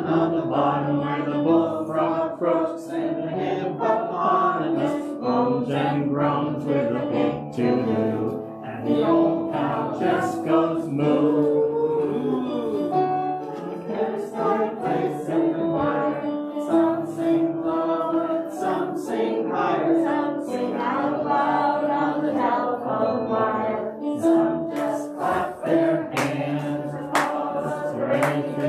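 Several voices singing a song together with instrumental accompaniment.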